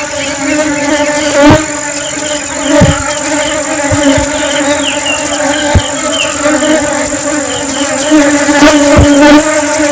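Honeybees buzzing in flight: a continuous pitched hum from their wingbeats, with a few brief low thumps scattered through it.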